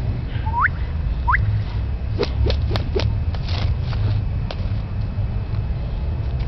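Wind rumbling on the microphone, with two short rising whistle-like chirps about half a second and a second and a half in, then a few sharp clicks a little later.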